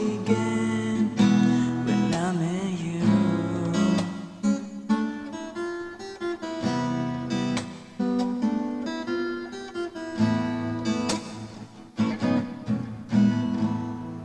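Ibanez acoustic guitar played solo: a slow chord progression, picked and strummed, each chord left to ring before the next.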